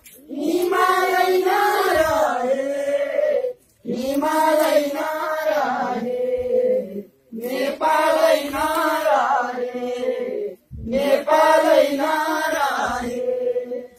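A group of men and women singing a Nepali patriotic song together in four long phrases, with brief pauses between them.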